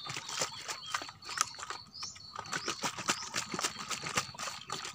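Plastic bottle of cloudy rice-washing water being shaken by hand, the liquid sloshing and the thin plastic knocking and clicking in quick, irregular strokes, to dissolve the brown sugar settled at the bottom.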